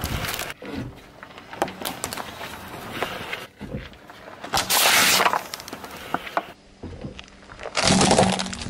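A car tyre rolling over and crushing things on asphalt: a series of sharp cracks and crackling. About halfway through, a plastic bottle gives a loud crunching burst as it is flattened. Near the end a red plastic object gives another loud crackling crunch as it breaks under the tyre.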